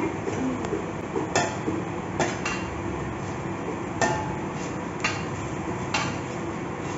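Metal spatula scraping and clinking against a wok while stirring frying onions: half a dozen short sharp clinks at uneven intervals over a steady hiss.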